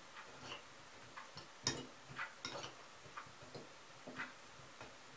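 Metal fork clinking and scraping against a white ceramic bowl while a vegetable salad is tossed: irregular light clicks, the sharpest about a second and a half in.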